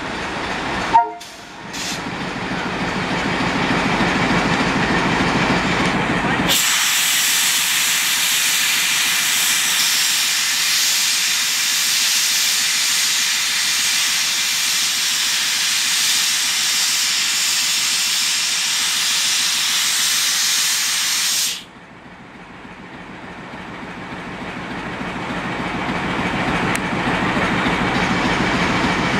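A drain valve under the frame of a WDM-2A diesel locomotive blows water out in a loud, steady hiss for about fifteen seconds, then cuts off suddenly. Before and after the blow-down, the locomotive's idling ALCO 16-cylinder diesel engine rumbles on its own.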